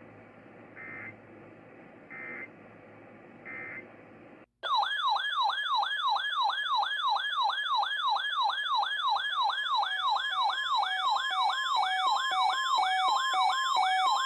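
Three short SAME digital data bursts, the EAS end-of-message code, about a second and a half apart over radio hiss and a low hum. About four and a half seconds in, the audio cuts to a loud electronic warbling alert tone sweeping rapidly up and down, about two and a half sweeps a second.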